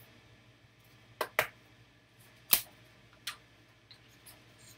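A few sharp clicks and taps of hard plastic and card being handled and set down on a table: a trading card in a rigid plastic top-loader and the next cards and packs. The loudest click comes about halfway through.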